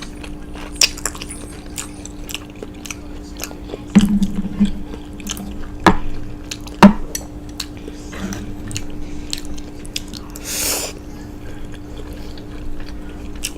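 Close-miked chewing of salt and pepper garlic fried chicken: wet mouth sounds and sharp clicks, the loudest about six and seven seconds in, with a brief low hum about four seconds in.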